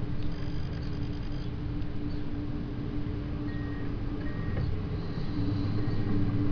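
Komatsu hydraulic excavator's diesel engine running steadily as the machine swings its empty bucket back from the tipper truck: a constant low drone with a steady hum.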